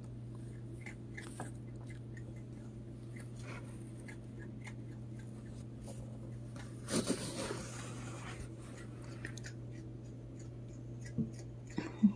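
A possum chewing food: faint, scattered clicks and small crunches over a steady low hum, with a short rustle about seven seconds in and a few light knocks near the end.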